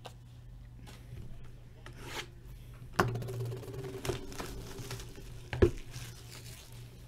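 Clear plastic shrink wrap being torn and crumpled off a sealed box of trading cards: irregular rustling and crinkling, with two sharp loud crackles, about three seconds in and again a little past five seconds.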